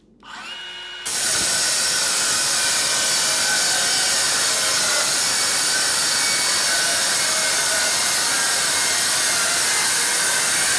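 Hilti SC 6ML cordless metal circular saw spins up, and about a second in its blade bites into thin stainless steel sheet and cuts with a loud, steady grinding. The blade is an industry benchmark blade that the stainless strips of most of its teeth.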